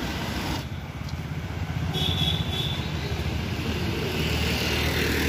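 Street traffic noise: a steady rumble of vehicle engines, with a brief high-pitched tone about two seconds in.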